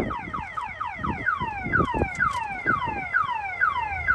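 Car alarm on a Honda Civic going off: a rapid series of falling chirps, about three a second, with a few low knocks underneath.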